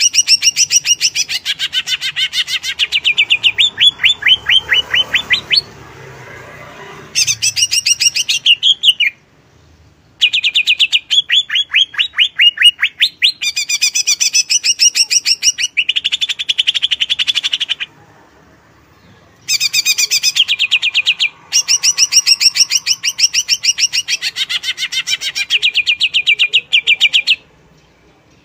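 Greater green leafbird (cucak ijo) singing in loud bursts of rapid, sharp repeated notes. Each burst lasts a few seconds, with short pauses between.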